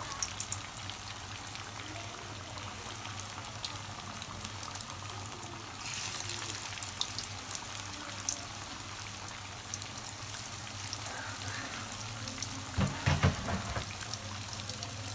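Flour-coated fish pieces deep-frying in hot oil in an iron kadai: a steady sizzle with scattered crackles, growing louder about six seconds in. A few dull thumps near the end.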